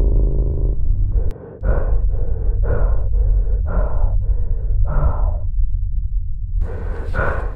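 A man's heavy, ragged breathing, quick gasping breaths two to three a second, as he lies injured after a motorcycle crash. The breaths break off for about a second and then start again near the end. A low steady rumble sits under them, and a held drone tone ends about a second in.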